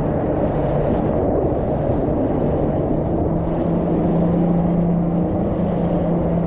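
A steady low motor drone over a rumbling, noisy background, with a hum that grows stronger about two and a half seconds in.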